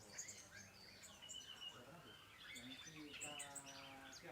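Aviary birds chirping and calling together, many short, high, overlapping calls; a little past three seconds in, a lower, drawn-out call runs for just under a second.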